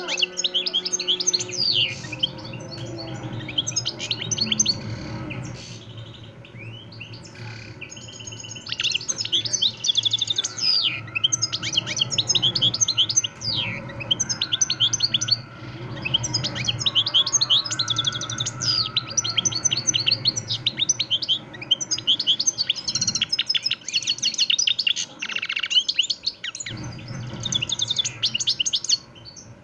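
Caged European goldfinch singing: long runs of rapid twittering chirps and trills, broken by short pauses about six, fourteen and twenty-six seconds in.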